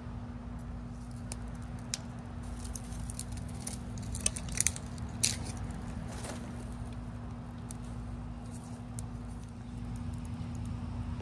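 Dry twigs and sticks rattling and snapping as kindling is laid on a freshly lit fire in a brick fire pit, with a cluster of sharp snaps about four to five seconds in. A steady low hum runs underneath.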